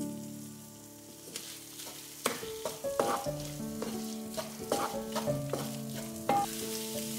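Wooden spatula stirring and scraping eggs and potatoes in a hot honeycomb-textured frying pan, with the food sizzling. From about two seconds in come repeated scraping strokes against the pan.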